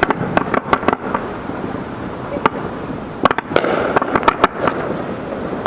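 Fireworks display: rapid sharp bangs and crackles of bursting aerial shells, in a cluster in the first second and again from about three to four and a half seconds in, over steady background noise.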